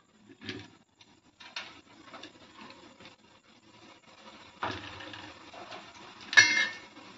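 Bonda dough balls dropped one at a time into hot oil in a stainless steel kadai, the oil sizzling and bubbling around them, the sizzle growing from about halfway. Near the end, a sharp metallic clink rings off the steel pan.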